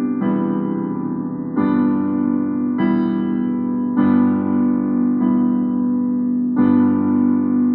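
Instrumental music: a keyboard playing slow, held chords, a new chord struck about every second and a half.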